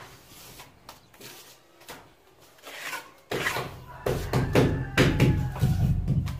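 A steel trowel scraping and slapping cement mortar onto a block wall around a switch box: faint, scattered scrapes and taps. About three seconds in, bass-heavy background music starts and becomes the loudest sound.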